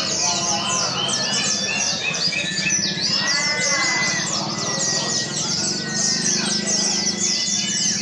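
Many caged pleci (white-eyes) singing at once: a dense, unbroken chatter of rapid high chirps and twitters, with a few longer whistled notes and a steady low hum beneath.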